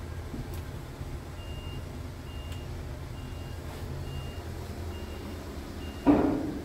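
Scania P truck's diesel engine idling with a steady low rumble, heard from inside the cab, while a short high beep repeats about once a second like a reversing alarm. Near the end comes a single loud thump.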